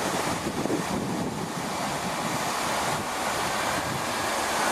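Steady rushing of wind on the microphone over the low rumble of a Class 165 diesel multiple unit pulling away from the platform.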